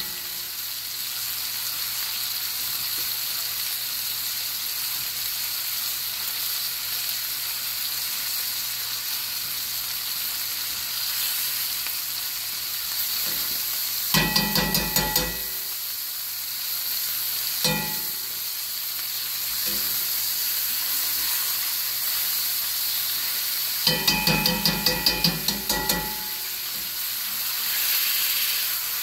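Steak sizzling in butter in a hot skillet, a steady frying hiss. Twice, about halfway through and again later, comes a quick run of clicks from the tongs against the steak and pan, with a single knock in between.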